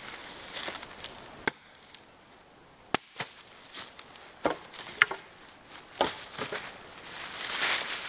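Several sharp chopping blows on thin dead wood, landing at uneven intervals as a small sapling is cut down, with a high rustling hiss behind them.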